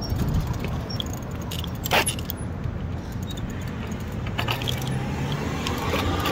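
Light metallic jingling and clicking from a moving bicycle rattling over the pavement, with one louder clank about two seconds in, over a low rumble of wind and passing traffic.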